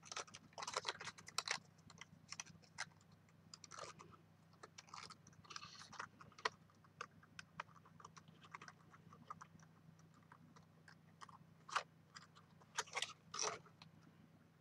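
Stiff kraft cardstock crackling and rustling as hands press a glued flap of a small folded box together. The crackles come in short clusters: at the start, around four to six seconds in, and again near the end.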